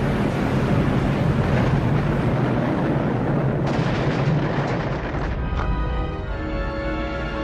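A long, rumbling explosion with a dense roar that runs for about five seconds and then fades, as music with long held notes comes in.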